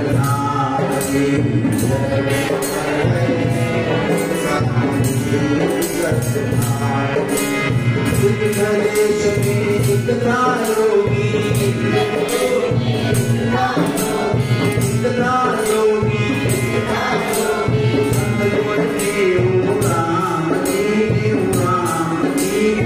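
Devotional bhajan music: a harmonium playing a melody over a steady rhythm of jingling percussion and a low drum beat.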